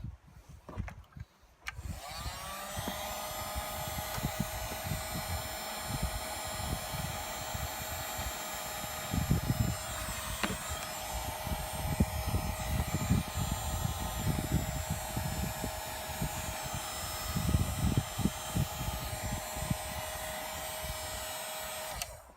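Handheld heat gun switched on about two seconds in, its fan motor whining up to speed and then running steadily, blowing hot air to shrink heat-shrink tubing over a battery cable lug, until it is switched off near the end. Irregular low thumps sound underneath.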